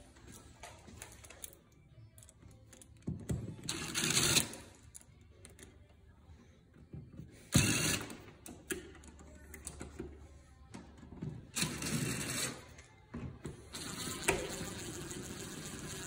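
Clicks, knocks and rustling of a light switch being fitted back into its wall box and screwed down, with one sharp knock about halfway through.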